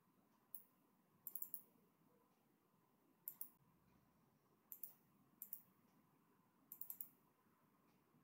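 Computer mouse clicks against near silence: short sharp clicks, mostly in quick pairs or threes like double-clicks, coming every second or two.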